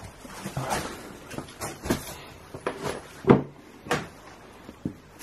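A series of sharp wooden knocks and bumps with rustling in between, from someone moving about a cluttered room; the loudest knock comes a little after three seconds in.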